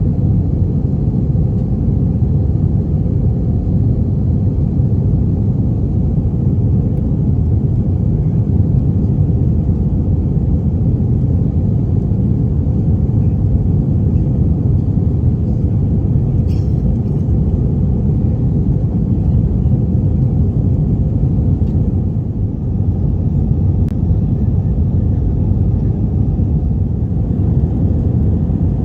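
Steady low rumble inside an Airbus A320 passenger cabin: engine and air noise heard from a seat, unchanging throughout.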